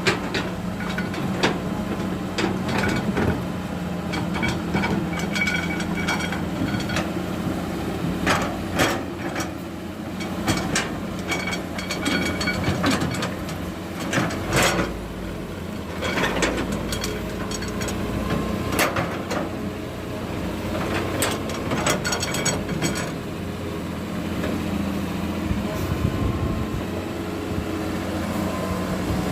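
Diesel engine of heavy earthmoving machinery running steadily, with irregular clanks and knocks throughout.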